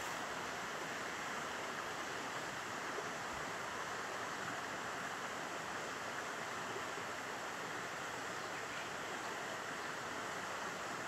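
Steady, even rush of water from Eongtto Falls.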